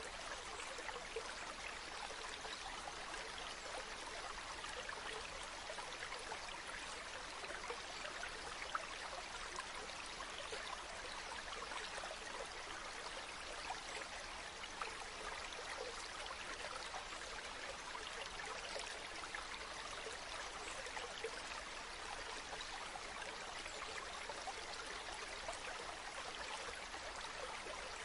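Waterfall: a steady rush of falling water, with small splashes here and there.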